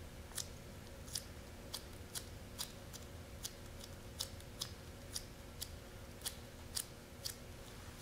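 Small scissors snipping over and over, a sharp little click about twice a second.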